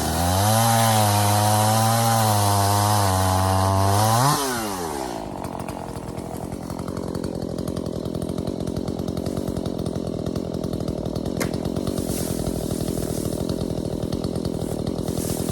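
Petrol chainsaw held at high revs, cutting fallen ash. About four seconds in the revs flare briefly as the cut finishes, then the saw drops back to a steady idle for the rest of the time.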